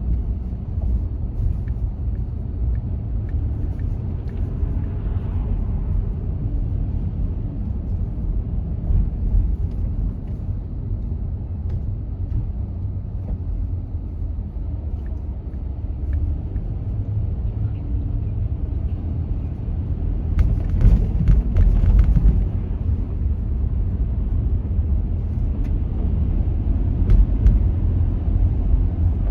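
Car driving: a steady low rumble of road and engine noise. A brief run of sharp clicks or knocks comes about two-thirds of the way through.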